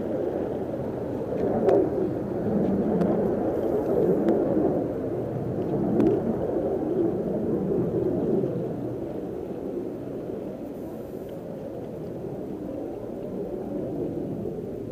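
Low rumble of a distant jet aircraft, swelling over the first few seconds and then slowly fading.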